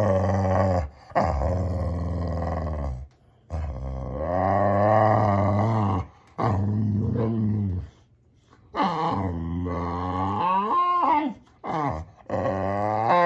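Boxer dog "talking": a string of drawn-out, grumbling growl-moans, about six in a row with short breaks, each wavering up and down in pitch. A higher, whining note near the end.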